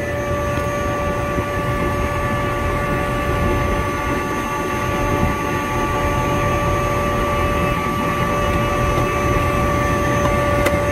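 Appion vacuum pump running steadily, a constant mechanical drone with a steady whine on top.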